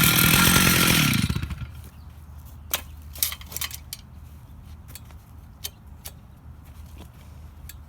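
Stihl 880 two-stroke chainsaw on an Alaskan mill running at full speed, then winding down, its pitch falling, about a second and a half in. After that, a low background with a few scattered light knocks.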